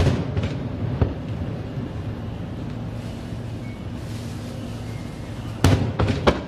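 Aerial firework shells bursting: a loud bang with a trailing echo at the start, a lighter one just after it and another about a second in, then a quick cluster of three bangs near the end, over a steady low hum.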